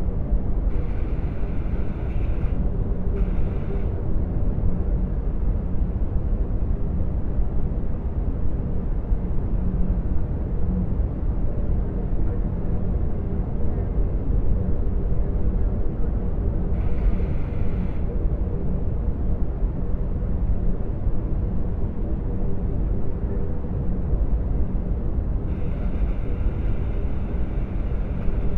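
Designed sci-fi ambience of a starship's bridge in hyperspace: a steady, deep engine rumble and hum. Short patches of fainter, higher hiss sit over it about a second in, near the middle, and again near the end.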